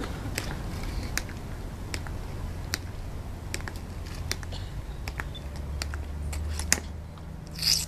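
A Tomb Guard's metal-tapped shoes clicking on the stone walkway in a slow, measured march, a sharp click roughly every three-quarters of a second, over a low steady rumble. A short hissing scrape comes near the end.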